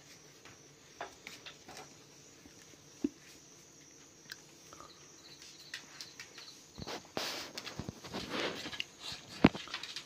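Freshly caught small fish and eels stirring in a bamboo basket: scattered soft taps and clicks, then a few seconds of busier rustling near the end with one sharp knock.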